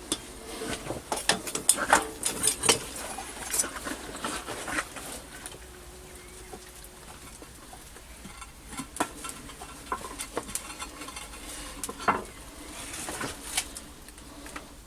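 Irregular clinks and scrapes of metal tools being handled, in scattered clusters, over a faint steady background.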